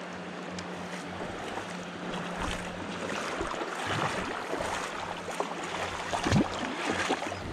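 Shallow river water running and lapping around rocks, with wind buffeting the microphone. A faint steady hum fades out about three seconds in, and a few dull thumps sound near the end.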